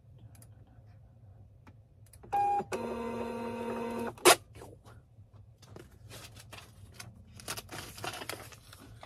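A short beep, then a shipping-label printer's motor whines steadily for about a second and a half as it feeds out a label, followed by one sharp snap. Faint clicks and rustling of handling follow.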